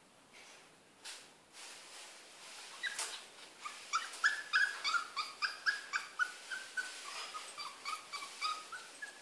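A poodle whining in a rapid run of short, high-pitched whimpers, two or three a second, starting about three and a half seconds in. Two sharp clicks come before the whining starts.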